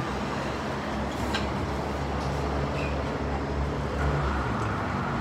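Transit bus engine running in street traffic: a steady low hum with road noise.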